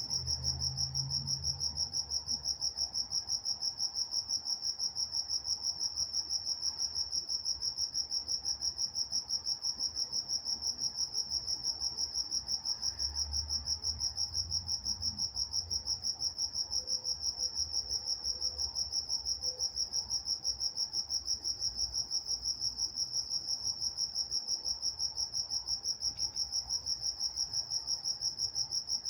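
Crickets chirping at night in a steady chorus, the high chirps repeating at an even, rapid rhythm.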